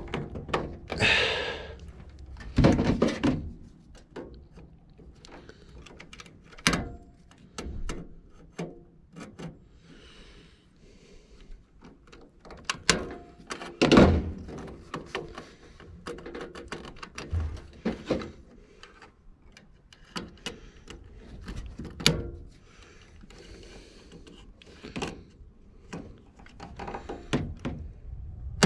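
Hands and a screwdriver working on wiring inside an HVAC unit's sheet-metal cabinet: scattered clicks, knocks and thunks with handling rustle, the loudest knock about fourteen seconds in.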